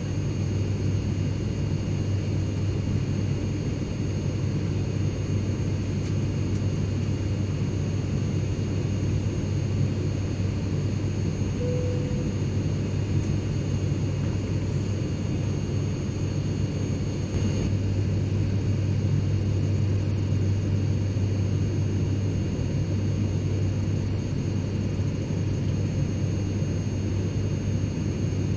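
Private jet cabin interior: a steady low engine and airflow rumble with a faint, constant high turbine whine above it. About two-thirds of the way through there is a faint click, and the rumble is a little louder after it.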